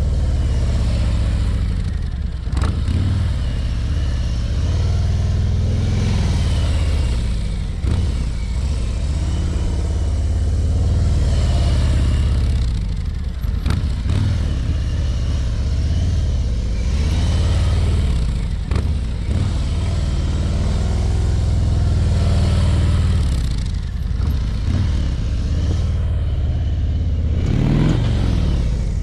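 Harley-Davidson Ultra Limited's V-twin engine running at low speed. The engine swells and fades and its pitch rises and falls about every five to six seconds as the motorcycle passes close by again and again.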